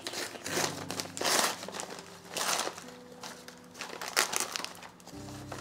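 Brown kraft paper wrapping crinkling and rustling as it is pulled off a potted plant, in several bursts, the loudest about a second and two and a half seconds in. Quiet background music underneath.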